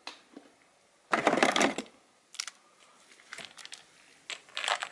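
Handling noise as a Kärcher K2's coiled high-pressure hose is pulled out of its cardboard box: a short scraping rustle about a second in, then scattered clicks and taps.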